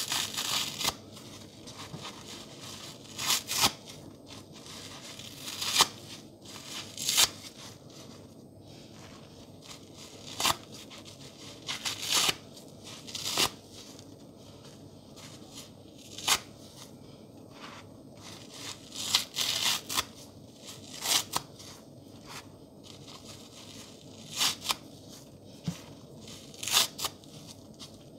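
Soapy pink sponge chunks being torn apart by hand: crisp, crackly rips at irregular intervals, some single and some in quick runs of two or three, with quieter squeezing between them.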